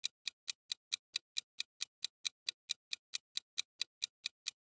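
Quiz countdown timer sound effect: a steady clock-like ticking, about four and a half light ticks a second.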